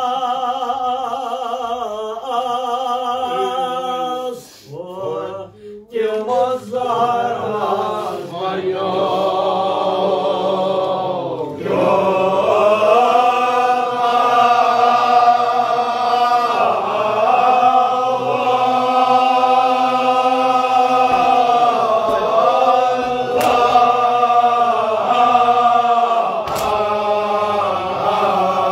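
Group of men chanting a Shia mourning elegy together, unaccompanied, in long drawn-out sung lines. It breaks off briefly about five seconds in, then resumes.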